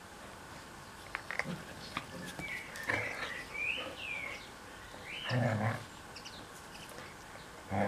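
Puppies and an adult standard poodle play-fighting: high, gliding squeals and whines for a couple of seconds, then short grumbling play growls about five seconds in and again at the end.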